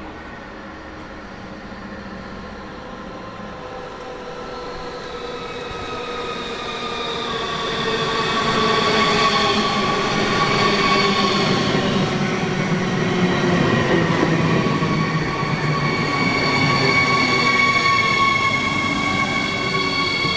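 A Siemens Desiro HC (class 462) electric multiple unit pulls into the platform and brakes, passing close by. Its electric whine of several tones slowly falls in pitch as it slows, and it grows louder over the first several seconds, then holds, with rolling rumble underneath.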